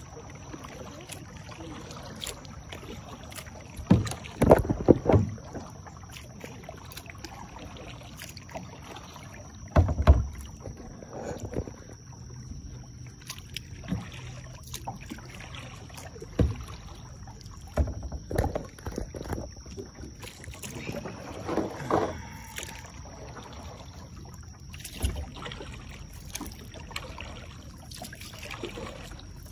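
Kayak paddling: the paddle blades dipping and splashing in the lake water in irregular strokes every second or two, with a few louder strokes about four to five and ten seconds in.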